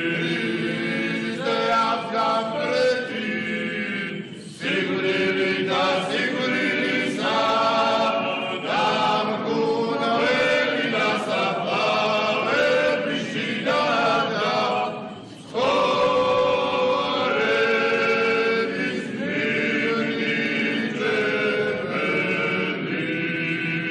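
Male church choir singing Georgian Orthodox liturgical chant a cappella, in long sustained phrases broken by two short pauses, about four and fifteen seconds in.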